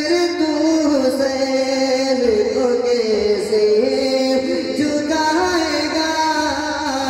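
A man singing a naat, an Urdu devotional song, into a microphone. He holds long melismatic notes that glide up and down in pitch.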